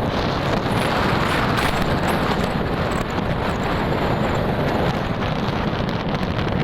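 Wind rushing over the microphone of a moving motorcycle, mixed with the bike's engine and road noise, swelling somewhat louder in the first couple of seconds.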